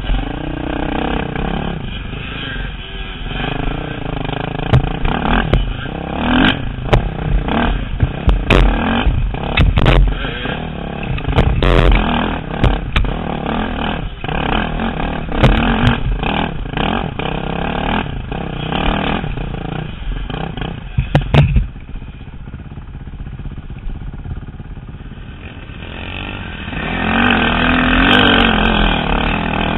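Dirt bike engines heard from a helmet camera, revving up and down over rough trail with many sharp knocks and rattles. The engine eases off about two-thirds of the way through, then revs up hard again near the end.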